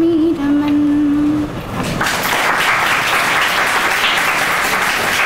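A woman's voice holds the last sung note of the song and stops about a second and a half in. About two seconds in, an audience breaks into steady applause.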